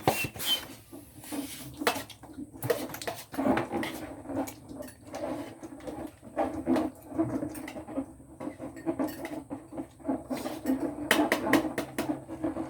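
Rubber balloons being handled and rubbed, with wavering squeaks and irregular small clicks and knocks.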